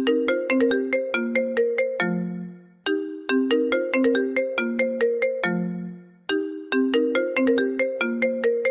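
Phone ringtone: a short melody of quick notes, the phrase repeating about every three and a half seconds, each time ending on a lower held note that fades away before the melody starts again.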